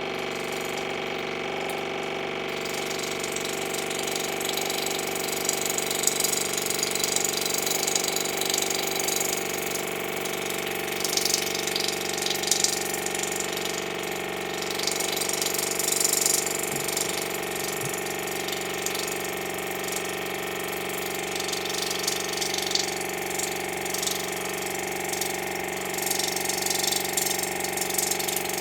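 Water pick (oral irrigator) running with its steady, rattling pump buzz while it jets water into an ear. A hiss of spraying and splashing water comes in about two and a half seconds in.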